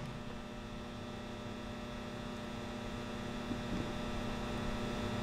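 Steady electrical mains hum from the Viet wide belt sander with its sanding heads switched on but not yet running, held back by a start time delay, growing slightly louder. A short click of a control-panel button comes right at the start.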